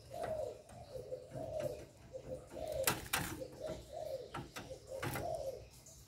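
Spotted dove cooing: a run of short, low coos, some falling in pitch, with a few sharp clicks in the middle and near the end.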